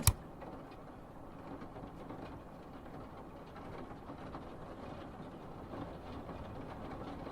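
Faint, steady background rumble and hiss with no distinct events, like ambient noise in a moving vehicle.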